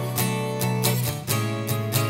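Background music: strummed acoustic guitar with a steady beat, changing chord partway through.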